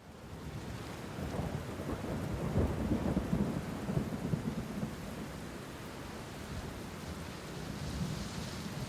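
Steady rain with a long rumble of thunder that swells a couple of seconds in, then eases back to the hiss of the rain.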